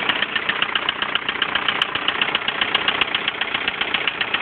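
1999 VW Golf 1.9 TDI diesel engine idling with a rapid, even ticking clatter, with a slightly noisy tappet.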